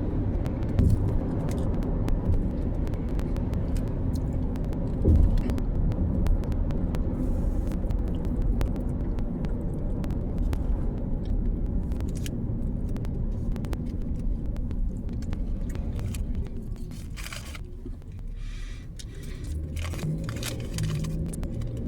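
Low steady rumble of a car engine running, with scattered small clicks and rustles over it; the rumble eases somewhat near the end.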